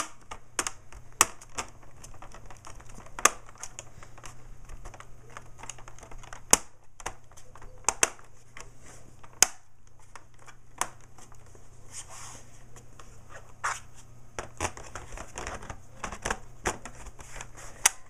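Plastic clicks, snaps and taps as a laptop's bottom RAM-compartment cover is set back in place and pressed down, with the laptop being handled. The clicks come irregularly, about half a dozen sharp ones among many faint ticks.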